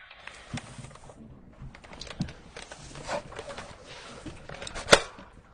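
Light handling noises of a drink can being held and turned: scattered soft taps and rustles, with one sharp click about five seconds in.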